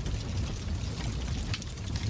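Wood fire crackling in a fireplace: a few sharp pops, the clearest about three-quarters of the way in, over a steady low rumble of the burning logs.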